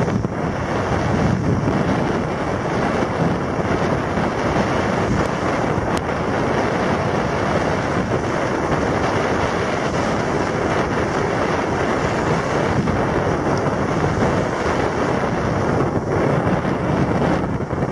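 Wind buffeting the microphone: a steady, even rush of noise.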